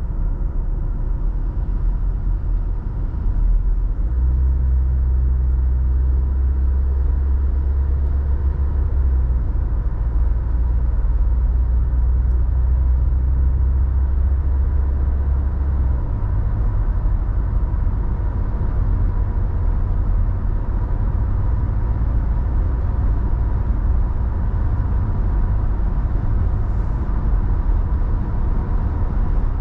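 Road noise inside a moving car: tyres on asphalt and the engine make a steady low rumble, with a faint constant whine. The rumble deepens about four seconds in and shifts again about sixteen seconds in.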